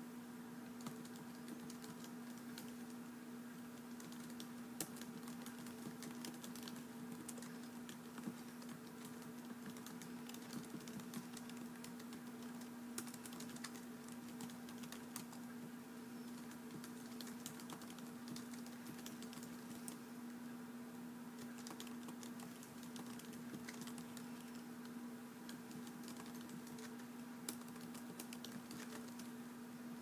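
Steady, irregular typing on a keyboard: a continuous patter of light key clicks, with an occasional louder keystroke. A steady low hum runs underneath.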